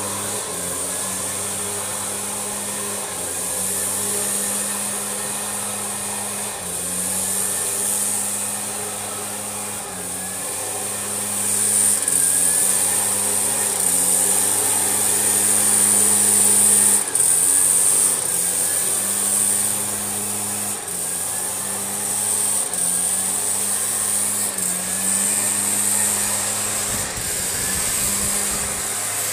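Zenoah EBZ5100 backpack leaf blower's two-stroke engine running with a strong rush of air from the tube. The engine note and air hiss step up and down as the throttle changes, loudest about halfway through.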